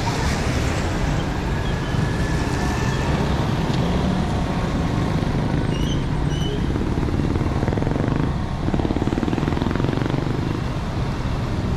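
Road traffic on a rain-wet street: cars and motorbikes passing close with a steady low rumble and tyre noise, swelling about eight seconds in as a vehicle goes by alongside.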